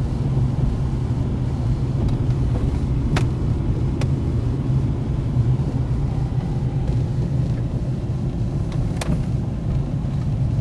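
Steady low rumble of a car's engine and tyres heard from inside the cabin while driving, with a few brief sharp ticks.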